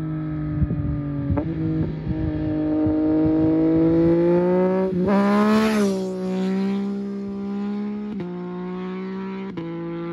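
Yamaha MT-09 SP's three-cylinder engine through a SPARK exhaust with no dB killer, passing by at high revs. The note rises slowly in pitch as the bike approaches and is loudest as it passes, about five to six seconds in, with a short rush of wind and tyre noise. It then drops in pitch as the bike moves away.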